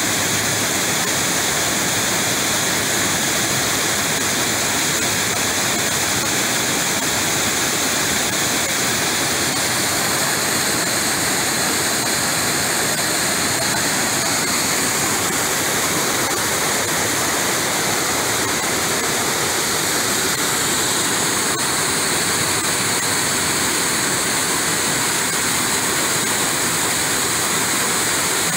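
Creek water rushing steadily over a low concrete dam and down a rocky run of whitewater.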